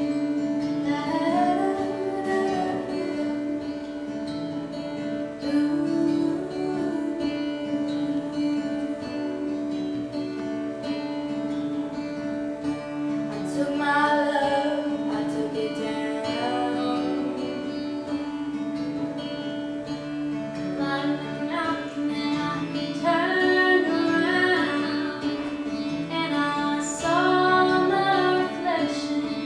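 Background music: a melody moves in phrases over a steady held drone note, with plucked strings and a moving bass line.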